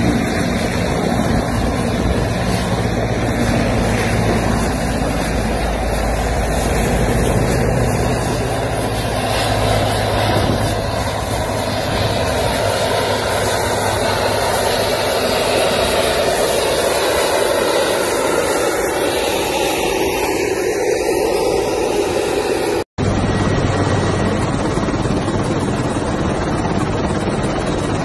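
Helicopter turbine engines and rotor running on the ground, a loud steady noise. About 23 s in, the sound breaks off for an instant, and a similar steady noise follows.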